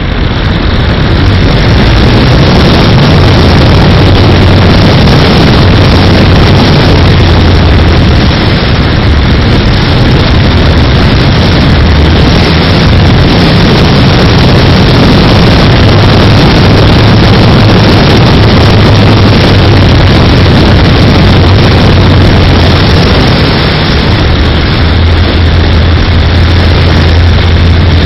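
Loud, steady airflow rushing over the onboard action camera of a flying RC model aircraft, with a low drone underneath that swells and fades.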